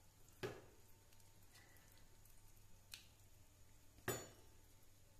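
Near silence broken by three light clinks of a steel spoon against a steel plate and bowl while green chutney is spooned onto the puris; the loudest come about half a second in and about four seconds in, as the spoon goes back into the chutney bowl.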